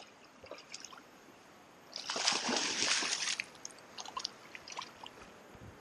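Hooked musky thrashing at the water's surface: one loud splash about two seconds in that lasts over a second, with smaller splashes and drips before and after.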